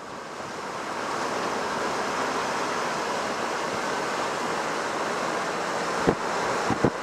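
Wind rushing over the microphone of a moving vehicle, building over the first second and then steady, with a few knocks near the end.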